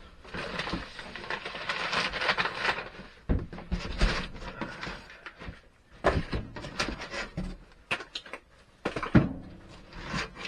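Handling of the kit's packaging and parts: rustling for the first few seconds, then scattered knocks and clacks as pieces are moved and set down.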